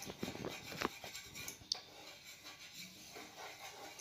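Faint scraping of a wooden spatula across the bottom of a nonstick frying pan, spreading a little oil, with a couple of light taps in the first two seconds.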